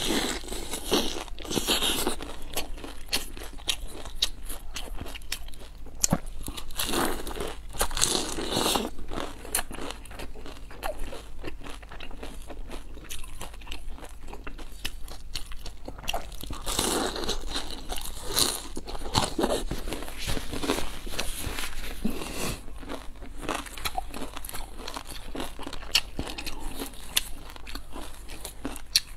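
Close-miked eating of crisp pan-fried dumplings: several crunchy bites into the fried crust, with chewing between them.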